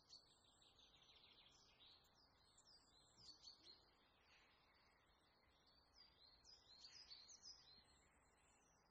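Faint bird chirping: many quick, high chirps in twittering bunches, busiest about three seconds in and again from about six to eight seconds in.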